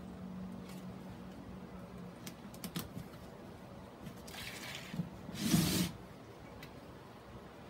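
Handling noises from a plastic mesh mounting board and its sphagnum moss ball: a few light clicks, a short rustle, then a louder scrape with a dull knock about five and a half seconds in as the board is turned on its tray.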